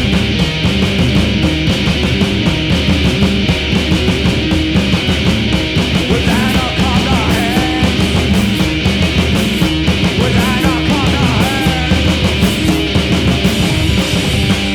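Loud, distorted noise rock: a heavy grinding low end and driving drums. Wavering high-pitched squeals come in twice, about six and ten seconds in.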